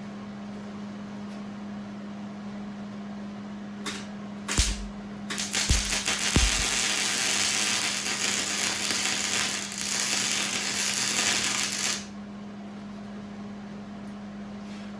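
Hobart MIG welder striking an arc with a few sharp pops, then running a steady crackling weld bead for about six seconds that stops abruptly, over a steady low hum. The welder is run without shielding gas, which the welder says gave him poor, ugly welds.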